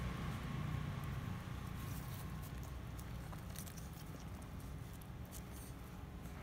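Scattered light clicks and patter from dogs moving about on paving tiles, heard over a low steady rumble.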